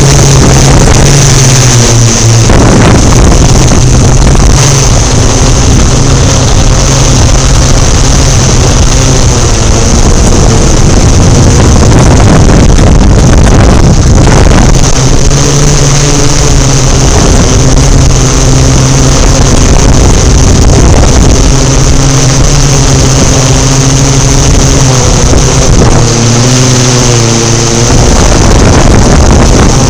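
Quadcopter drone's electric motors and propellers running loudly and steadily, heard from the drone's own microphone: a low hum with a high whine over it and some wind buffeting. The pitch shifts briefly near the end as the motors change speed.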